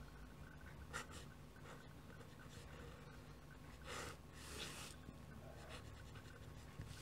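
Pen nib scratching faintly on paper as a signature is written in quick strokes, with a sharp tick about a second in and a longer scratch around four seconds in.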